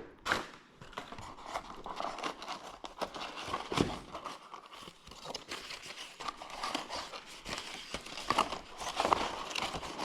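Plastic packaging crinkling and rustling with irregular crackles and small clicks, as kit parts are unwrapped and handled.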